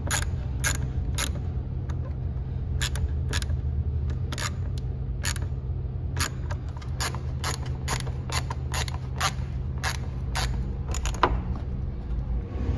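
Hand ratchet clicking in short strokes, about one to three clicks a second, as fasteners are tightened while reassembling parts at the throttle body. A steady low hum runs underneath.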